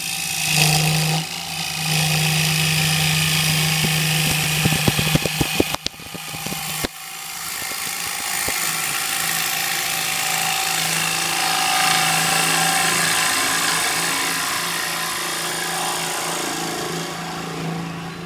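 Wood lathe running with a turning tool cutting into the inside of a spinning cherry bowl: a steady motor hum under the hiss of the tool peeling off shavings. A quick run of sharp ticks about five seconds in, then a brief drop near seven seconds before the cutting picks up again.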